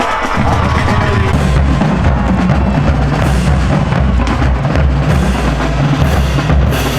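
Loud music with a steady drum beat and deep bass drum.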